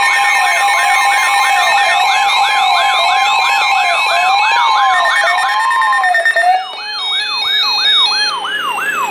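Several electronic siren and alert tones sounding together: a fast rising sweep repeating about twice a second over a steady tone and stepped beeping. About six and a half seconds in the steady tone drops out and slow wailing glides up and down join the repeating sweep.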